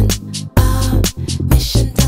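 Music with a steady, rhythmic beat and a bass line.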